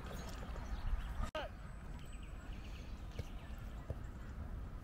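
Outdoor football play heard from the touchline: one short distant shout from a player about a second in, a couple of faint thuds later, and a steady low rumble of wind on the microphone.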